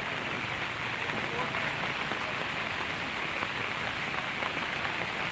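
Steady rain falling on a flooded road, an even hiss, with faint voices behind it.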